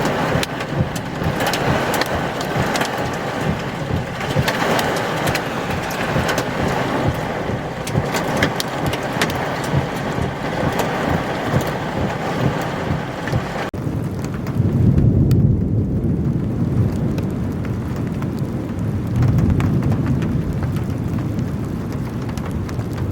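Heavy rain pelting the vehicle, a dense patter of drops. About fourteen seconds in the patter stops abruptly and a low rumble takes over, swelling twice.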